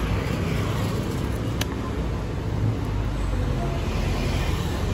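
Steady low rumble of passing road traffic on a busy city street, with one brief click about a second and a half in.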